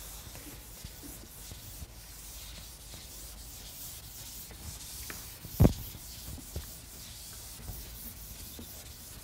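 Chalk rubbing and scraping on a blackboard, faint and continuous, with a few small taps and one sharp knock about five and a half seconds in.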